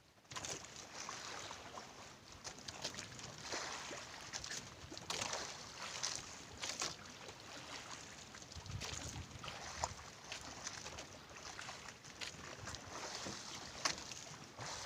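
Irregular splashing and sloshing of water around a small fishing boat, with some wind on the microphone.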